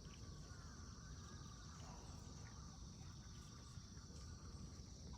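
Faint, steady high-pitched chirring of insects, crickets or similar, over a low rumble of background noise.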